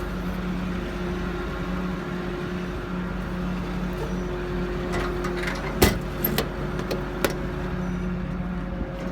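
Diesel truck engine idling steadily, with a few sharp knocks or clicks about six and seven seconds in.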